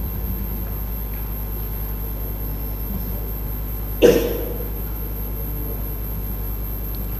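Steady low electrical hum, with one short sudden noise about four seconds in that fades within half a second.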